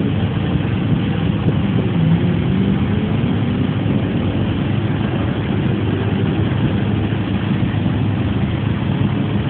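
Car engines idling with a steady, low rumble.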